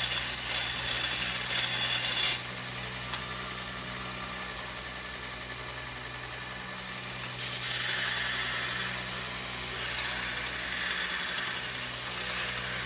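2x72 belt grinder running, its abrasive belt grinding a small radius on the end of a workpiece: a steady hiss over the motor's hum, heavier for the first two seconds and then easing to a steadier grind.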